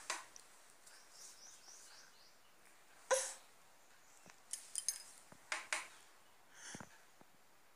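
A few short, sharp knocks and clicks close to the microphone over a quiet hiss: the loudest about three seconds in, then a small cluster of quicker clicks and a couple more in the second half.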